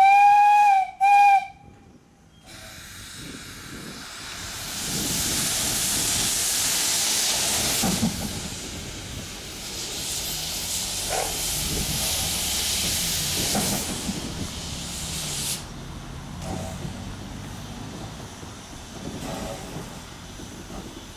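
Narrow-gauge steam locomotive's whistle sounds twice, a long blast and then a short one. It is followed by a long loud hiss of steam that cuts off suddenly after about eleven seconds, with quieter rail rumbles after.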